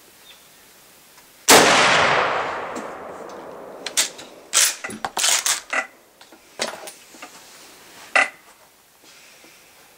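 A single shot from a 1934 Tula Mosin-Nagant M91/30 rifle firing 7.62x54R surplus ammunition, about one and a half seconds in, its report fading over a second and a half. From about four seconds in comes a run of sharp metallic clacks as the bolt is worked to eject the case and chamber the next round.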